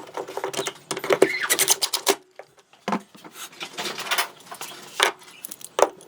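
Irregular clicks, taps and knocks of hard objects being handled, such as pliers, PVC pipe and a pine rack.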